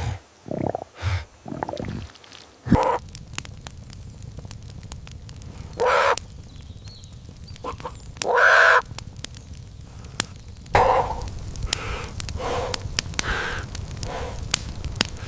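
Crows cawing: a few short harsh calls, spaced out at first and then coming in quicker succession near the end, over a steady low background with small clicks.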